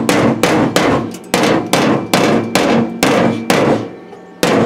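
Hammer striking the sheet-metal fender of a Chevy C1500 pickup, about four blows a second, each with a brief metallic ring. The blows pause shortly before the end, then come twice more. The panel edge is being hammered back into line along a tack-welded butt-weld seam.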